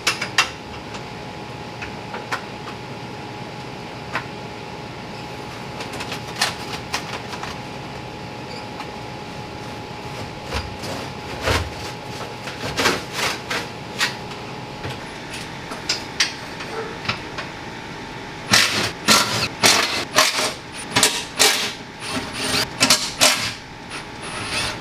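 Scattered metal clinks and knocks from hand work under a car, including the exhaust heat shield being moved. About three-quarters of the way in comes a run of short, loud bursts from a cordless impact wrench loosening the 16 mm transmission crossmember bolts.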